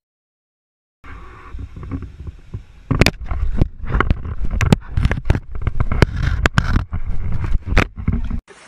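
Starting about a second in, heavy rumbling handling noise with a rapid string of knocks and clunks as an animal mouths and carries a small camera in its jaws. The sound stops abruptly just before the end.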